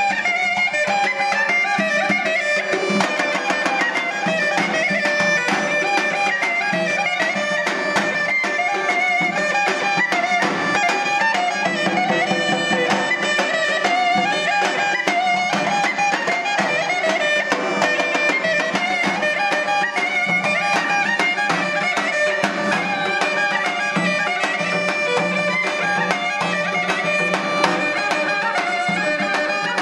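Armenian folk dance music played live: a zurna plays a winding melody over a dense, driving beat from two dhol drums, with keyboard accompaniment.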